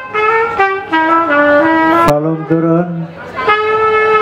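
Trumpet playing a melody of held notes that step up and down in pitch, with a lower instrument joining in about two seconds in.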